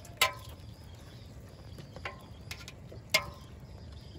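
Scattered sharp knocks and slaps of caught fish being handled and sorted, wet fish slipping and hitting the container. The two loudest knocks come about a quarter of a second in and about three seconds in, with fainter taps between.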